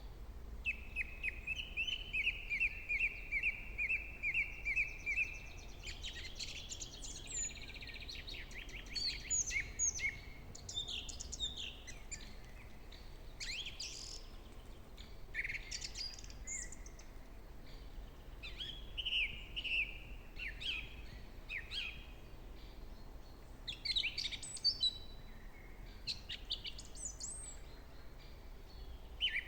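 Wild songbirds singing in a spring forest: a fast, even trill of repeated notes in the first few seconds, then a mix of overlapping chirps and whistles from several birds.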